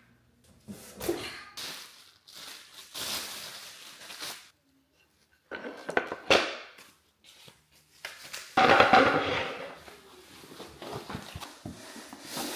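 Unpacking a flat-packed wooden high chair: plastic wrapping crinkling and cardboard rustling, with a few sharp knocks, in several separate bursts. The loudest burst comes about nine seconds in.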